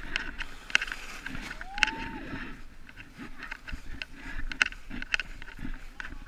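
Plastic sled being pulled over snow: irregular crunching and scraping clicks as it slides. A brief rising-then-falling squeak sounds about two seconds in.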